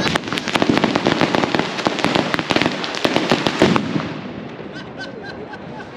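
A string of firecrackers going off in a rapid crackling barrage of bangs, which thins out about four seconds in to a few scattered pops.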